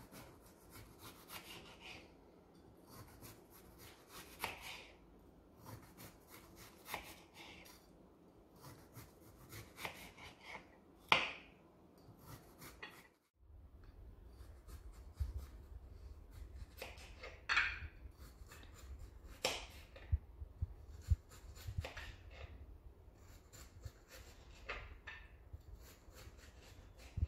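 Kitchen knife slicing a peeled cucumber into rounds on a cutting board: slow, irregular strokes through the flesh, a few ending in a sharper tap on the board.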